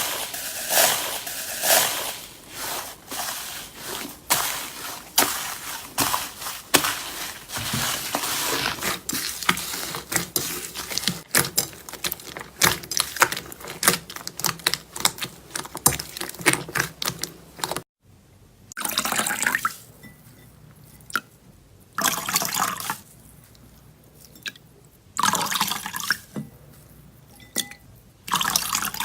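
Hands squishing and pressing slime: a dense run of wet clicks and small pops, then after a sudden break, separate squelches every few seconds.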